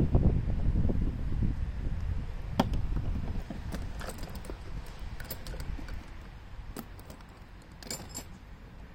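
Scattered light metallic clicks and clinks of hand tools and parts being handled on a Gravely Model L engine's bottom end during disassembly, over a low rumble that fades over the first few seconds.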